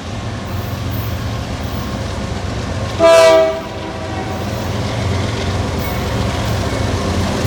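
Canadian Pacific freight locomotive's air horn sounding one short blast about three seconds in. Under it is the steady rumble of the approaching manifest train, which grows louder toward the end.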